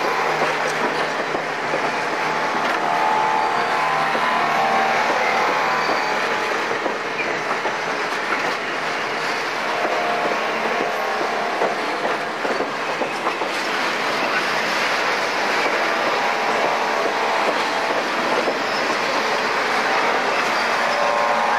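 Passenger cars of the Napa Valley Wine Train rolling past close by. Their steel wheels make a steady rumble and rattle on the rails.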